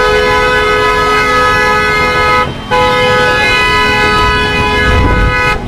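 Vehicle horn held down in long steady blasts, broken briefly about two and a half seconds in and stopping near the end, over the rumble of slow street traffic and motorbike engines.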